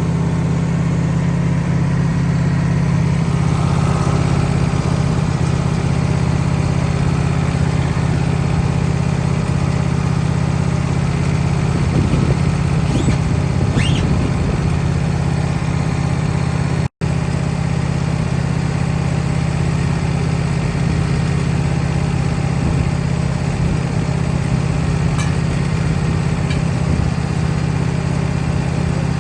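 Woodmizer LT15 sawmill engine running steadily at a constant speed, a continuous low hum.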